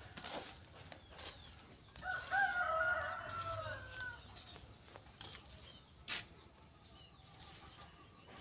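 A rooster crowing once, one drawn-out call of about two seconds starting about two seconds in. About six seconds in there is a short, sharp knock.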